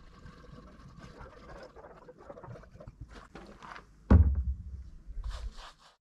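Liquid pouring faintly from a jug into a backhoe's tank, then a sudden loud thump about four seconds in, followed by a low rumble and a few knocks as the camera is picked up and moved.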